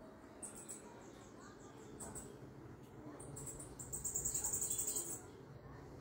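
Bananaquit (sibito) singing: a few short, very high chips, then about four seconds in a loud, fast buzzy run of high notes lasting just over a second.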